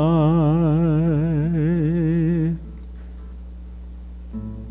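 A man sings one long held note with a wide, even vibrato over a classical guitar. The voice stops about two and a half seconds in, leaving a few soft plucked guitar notes.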